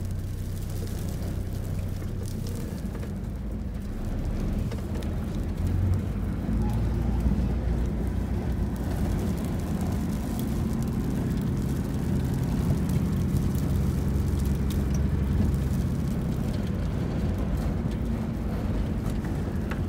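Dust-storm wind buffeting a Toyota, heard from inside as a steady low rumble that grows louder about four seconds in.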